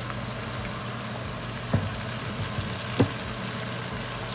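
Chicken wings deep-frying in a pot of hot oil, a steady bubbling sizzle over the even hum of a range hood fan. Metal tongs knock twice against the pot, a little over a second apart.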